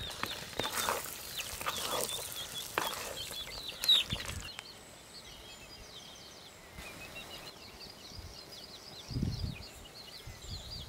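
Small birds chirping over and over. In the first few seconds a wooden spatula scrapes and stirs thick curry in a clay pot, with a sharper, louder sound about four seconds in.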